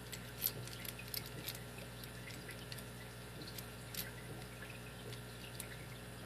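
Scattered light metallic clicks and ticks of a small 4-pin wafer cabinet lock and lock-picking tools being handled, over a steady low hum.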